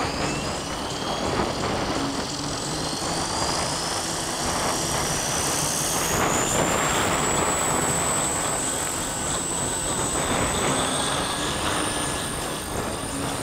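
Walkera V400D-02 electric RC helicopter's 380 main motor and rotor spooling up: a thin whine rising steadily in pitch for about six seconds, then holding level. Heavy wind noise on the microphone runs underneath.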